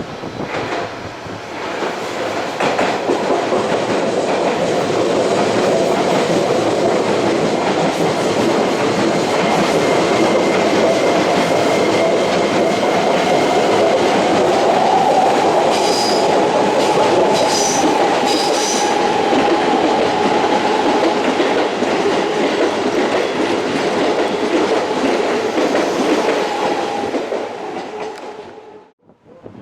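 Keisei Line train passing through a station platform at speed: a long, loud run of wheel clatter over the rail joints with a steady humming tone, and a few brief high wheel squeals about halfway through. The sound builds over the first two seconds and cuts off sharply just before the end.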